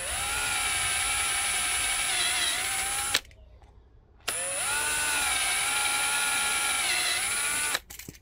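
Ryobi cordless drill running in two bursts of about three seconds each with a short pause between, drilling small holes in a mousetrap. Its motor whine rises as it spins up and dips briefly in pitch near the end of each burst.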